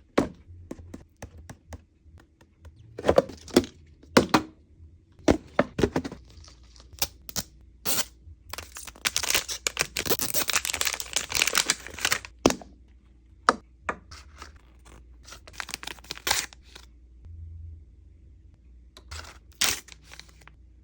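Hands tearing and crinkling the plastic wrapping of a Mini Brands toy capsule, with sharp clicks and snaps of plastic between the bursts. The longest stretch of tearing and crinkling comes about halfway through.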